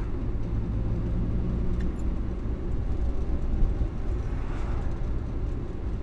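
1962 Morris Minor 1000's four-cylinder engine running steadily under way, heard from inside the cabin with road noise, the engine note dropping about two seconds in. One brief bump or knock sounds about three and a half seconds in.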